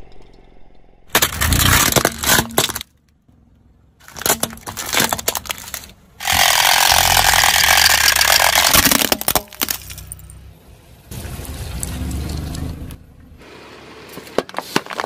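Car tyre rolling over and crushing objects on asphalt in a series of short takes: bursts of crunching and cracking, then a loud hissing rush lasting about three seconds, then a softer crushing noise.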